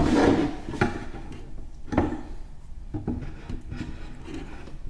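Handling knocks and rubbing as a metal in-drawer outlet box and its hinged arm are fed through a cutout in a wooden drawer back and set in place: a few sharp knocks, about one a second, with softer scraping between.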